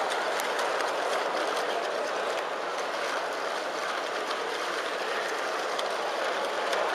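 Steady din of a crowded competition hall, with scattered light clicks and taps through it.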